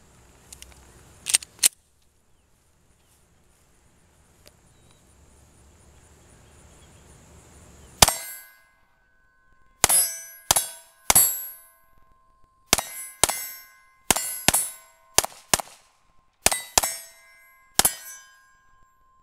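Glock 19 9mm pistol firing: two quick shots about a second in, then a string of about thirteen shots from about eight seconds in. Several shots are followed by a short metallic ring as the AR500 steel targets are hit.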